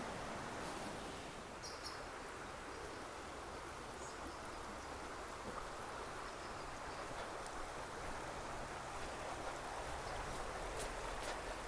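Small stream running, a steady rush of water. A brief high chirp sounds about two seconds in.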